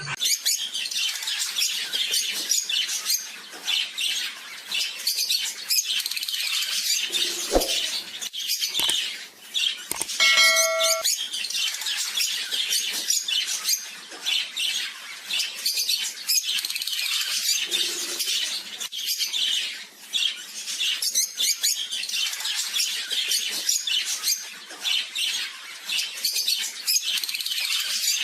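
A flock of African lovebirds and budgerigars chattering with dense, continuous high chirps and squawks. About ten seconds in, one louder pitched call stands out for about a second.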